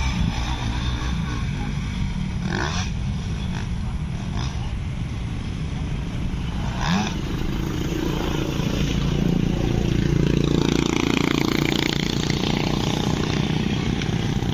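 Dirt bike engines running on an off-road track. From about seven seconds in, one engine's note rises and gets louder as a bike accelerates, loudest around ten to twelve seconds in.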